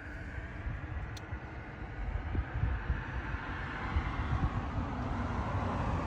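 Outdoor ambience of gusty wind rumbling on the microphone, with a rushing background noise like road traffic growing louder toward the end and one short click about a second in.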